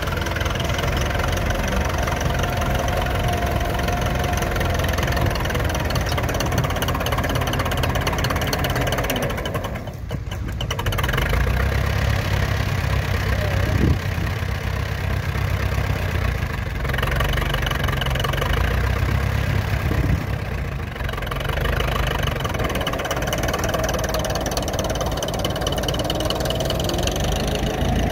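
A tractor engine running steadily at a low, even speed, briefly dropping in level about ten seconds in.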